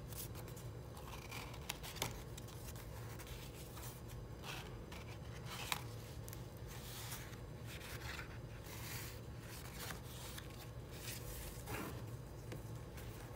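Stiff, wrinkled watercolour-painted sketchbook pages of a handmade leather-bound journal being turned one after another, rustling and crinkling, with a couple of sharp paper snaps. A low steady hum runs underneath.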